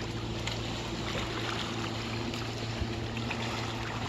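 Steady rushing of falling and flowing water, with a constant low hum underneath and a few faint ticks.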